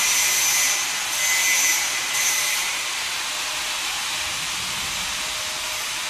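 Packing machinery hissing steadily, with three louder bursts of air hiss in the first three seconds.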